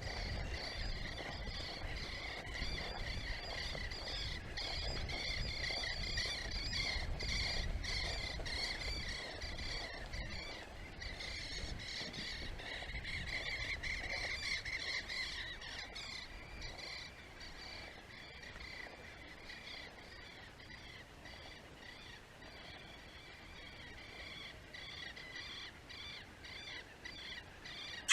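Many birds calling together in a dense, continuous chattering chorus, busier in the first half and thinning out after about sixteen seconds, with a low rumble underneath in the first half.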